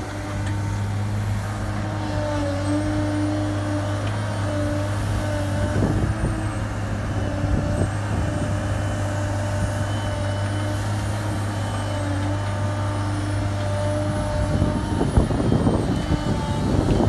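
Diesel engine and hydraulics of a Cat M316D wheeled excavator working steadily while it digs soil and swings a loaded bucket, its pitch shifting as the hydraulics load up. The sound grows louder and rougher near the end.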